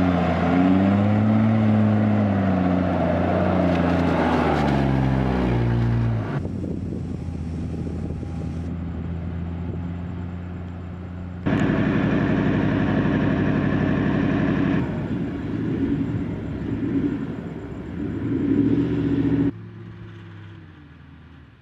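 Four-wheel-drive engines revving as they labour through soft sand, the pitch rising and falling over the first few seconds, then running hard and steady. The sound changes abruptly a few times, at edits between shots, and fades near the end.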